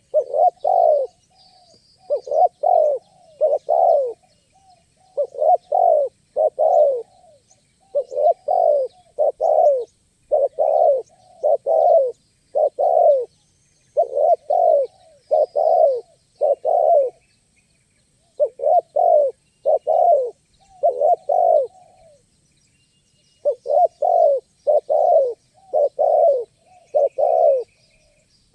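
Spotted dove (tekukur) cooing: short phrases of a few low notes each, repeated over and over with a brief pause about three-quarters of the way through. Faint high chirps of small birds sound behind it.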